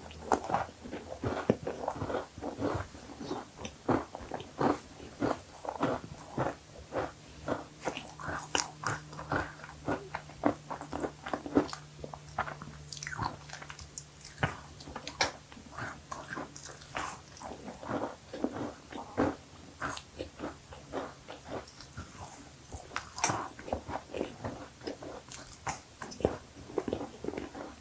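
Close-miked eating of cookies: a run of crunchy bites and chewing, with irregular sharp crackles throughout.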